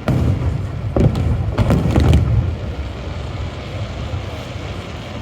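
Aerial fireworks shells bursting: about four booms in the first two seconds or so, each a sharp crack with a deep rumbling tail, then a lower steady rumble.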